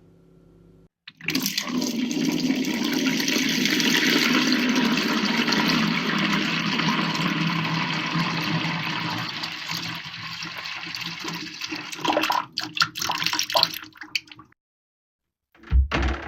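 A toilet flushing: a click, then a loud rush of water that tapers off over about ten seconds into gurgling trickles, which cut off suddenly. A few low thuds follow near the end.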